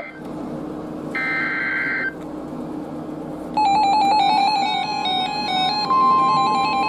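NOAA Weather Radio alert coming in: about a second in, a one-second burst of warbling digital SAME data tone; a few seconds in, the receiver's rapid stepping electronic beep melody; then near the end the steady 1050 Hz warning alarm tone starts, marking a new severe thunderstorm warning.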